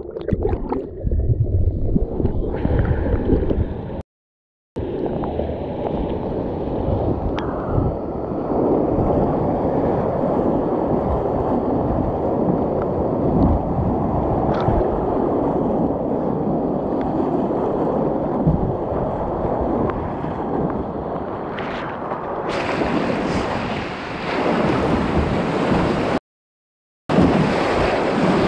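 Whitewater river rapids rushing and splashing around a kayak, heard from a camera at the waterline. It is muffled and gurgling for the first few seconds while the camera is awash, then becomes a steady rush of churning water that grows brighter with spray near the end. The sound drops out to silence briefly about four seconds in and again near the end.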